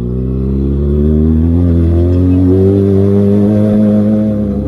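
2019 Kawasaki Ninja ZX-6R's inline-four engine, breathing through an aftermarket Austin Racing exhaust, pulling in gear up a steep lane. Its pitch rises over the first couple of seconds, holds steady, then drops as the throttle is eased right at the end.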